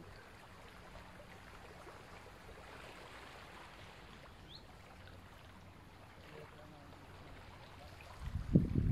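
Faint, steady rush of water. Near the end, a louder low rumble of wind buffeting the microphone.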